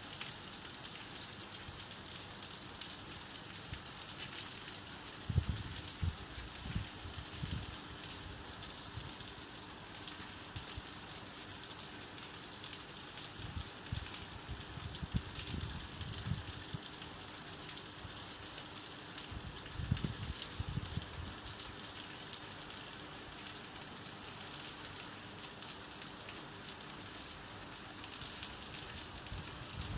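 Steady rain falling, an even hiss, with short low rumbles every so often.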